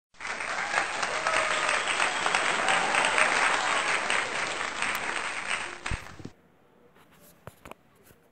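Recorded applause, a dense steady clapping from many hands, starting abruptly and cutting off about six seconds in; a few faint clicks follow.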